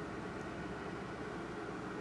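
Steady hum and hiss of a running fan, with one faint click of plastic Lego pieces being handled about half a second in.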